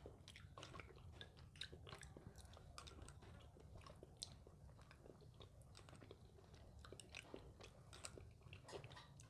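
Faint close-up chewing and mouth sounds of someone eating chhanar payesh, a soft milk pudding, with many small scattered clicks.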